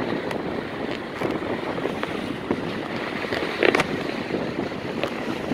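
Ocean surf washing and breaking against a rock jetty, with wind buffeting the microphone. A few short sharper bursts stand out, the loudest about three and a half seconds in.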